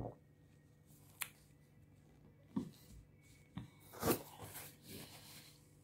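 Faint handling noise close to the microphone: a few scattered short taps and clicks, the loudest about four seconds in as a hand reaches right up to the camera, followed by light rustling.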